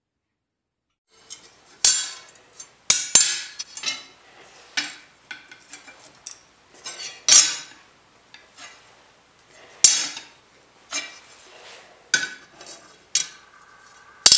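After about a second of silence, an irregular run of metal-on-metal clanks and clinks from steel parts or tools being struck and set down. Several hits ring briefly, and one near the end rings on with a steady tone.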